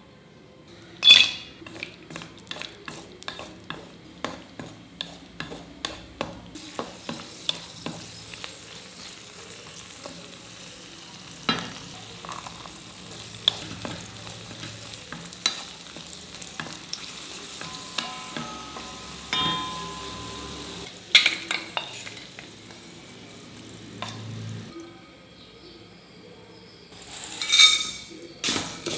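Cashews and raisins frying in ghee in a brass kadai, sizzling steadily, while a metal spatula stirs and clicks against the pan, at first about twice a second. Near the end there is a louder run of scraping and clicks as the pan changes to one of vermicelli being roasted in ghee.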